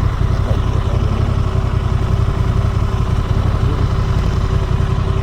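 Honda Transalp 750's parallel-twin engine running steadily while the bike cruises, heard through wind noise on an action camera's built-in microphone.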